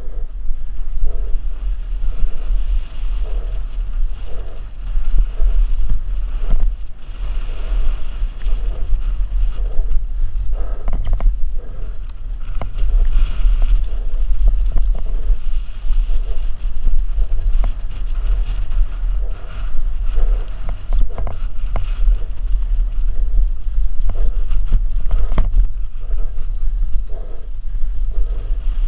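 Downhill mountain bike rolling fast down a dirt trail: heavy wind rumble on the microphone, tyre noise and frequent short knocks and rattles of the bike over bumps.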